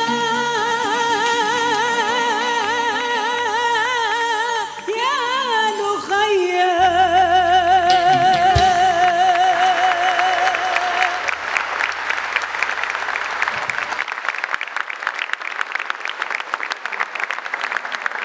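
Female singer finishing a Tunisian song with wide vibrato, ending on one long held note over the band's final chord. Audience applause starts a little before the note ends and carries on after the band stops.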